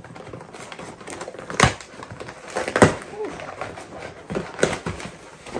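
Cardboard delivery box being opened and handled: packaging rustling and crinkling, broken by a few sharp knocks, the loudest about one and a half and three seconds in.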